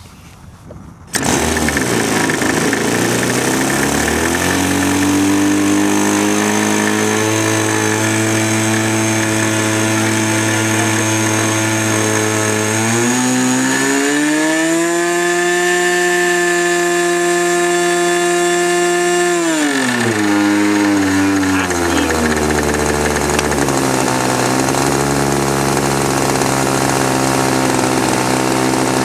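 Model aircraft engine, spun by an electric starter, catches about a second in and runs. Its pitch rises over the next few seconds, is throttled up to a high steady pitch about halfway through for around six seconds, then drops back to a lower running speed.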